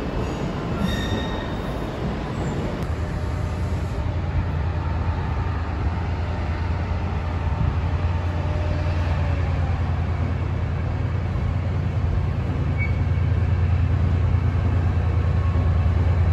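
Wheels of a Class 150 diesel multiple unit squealing as it runs into the platform. Then a deep, steady diesel engine drone grows gradually louder from an approaching Class 68 diesel-electric locomotive and its train.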